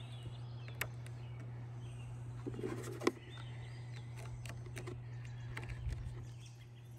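A few sharp clicks and clanks of alligator clamps being clipped onto car battery terminals, the loudest about three seconds in. Birds chirp faintly over a steady low hum.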